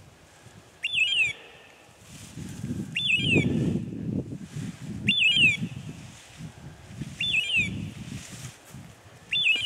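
Bird-dog beeper collar sounding its hawk-scream point tone: a short shrill call that sweeps up and then falls, repeating exactly every second and a half or so, the collar's signal that the dog is holding point. Under it, boots swish through dry grass.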